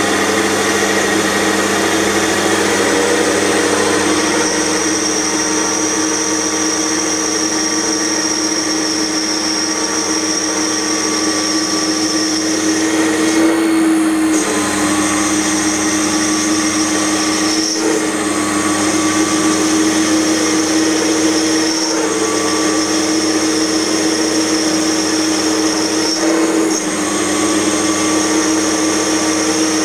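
Small benchtop metal lathe running steadily, its chuck spinning as the cutting tool turns a metal shaft: an even motor-and-gear hum with a high whine.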